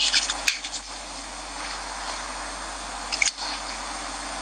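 Crackling and clicking handling noise from a wired earphone's inline microphone as its cable is fiddled with, over a steady hiss. The clicks cluster in the first second, with a few more a little after three seconds in.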